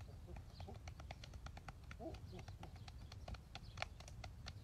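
Faint, scattered sharp clicks and crackles from scuffling on dry twigs and leaf litter as a young chimpanzee scrambles about, over a low rumble, with a short soft hoot-like call about two seconds in.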